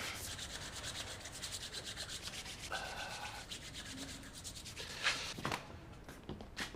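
Faint, steady rubbing with a fast, even scratchy pulse, ending with a few short rustles.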